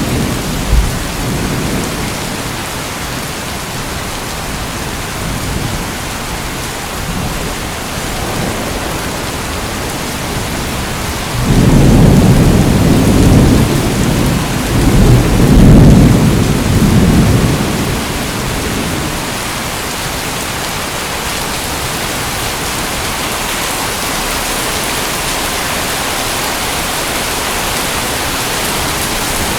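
Steady rain falling, with a long low roll of thunder that swells about a third of the way in and rumbles for several seconds before fading.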